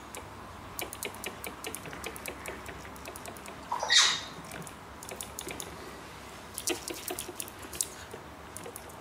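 An African grey parrot's beak clicking and nibbling on the plastic trigger of a spray bottle: rapid small clicks in two spells. About four seconds in comes one short, loud rising squeak.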